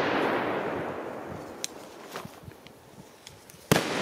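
A 2-gram flash-powder firecracker (Original Fireworks 0.8 Flash Nitraat) goes off with a single sharp bang near the end, its report echoing long through the surrounding woods. The opening second or so is the fading echo of the previous bang.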